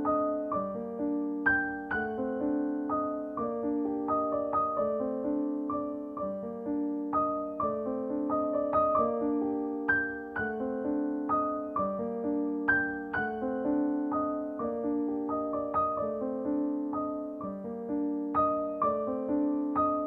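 Background music: solo piano playing a gentle run of single notes over chords.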